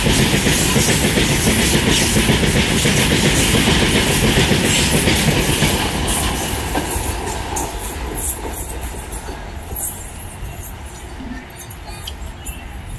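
Indian Railways BOXN open freight wagons, covered with tarpaulins, rolling past on the track. The sound is loud and dense, then fades steadily from about six seconds in as the last wagon passes and the train moves away, leaving scattered sharp clicks.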